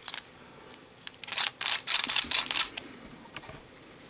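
Stiff plastic packaging crackling and clicking as a padlock is taken out of it, a dense run of crackles for about a second and a half starting just after a second in, with a few separate clicks before and after.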